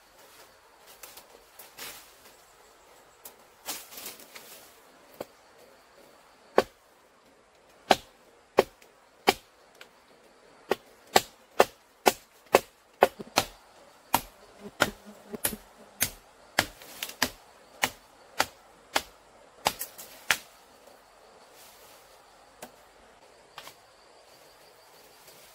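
Bamboo being chopped with a blade: a run of about two dozen sharp strikes, roughly two a second, after a few lighter knocks near the start.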